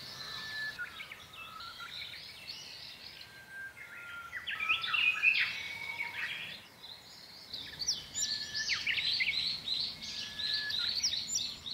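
Songbirds chirping and twittering in a chorus, many quick overlapping calls, busiest about five seconds in and again over the last few seconds.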